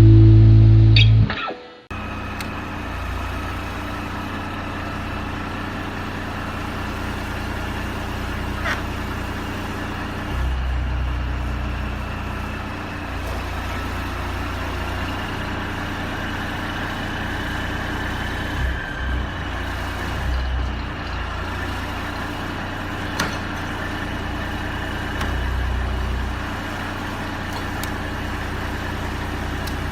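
A heavy engine running steadily with a low rumble and a faint, level high whine, after music cuts off about a second and a half in.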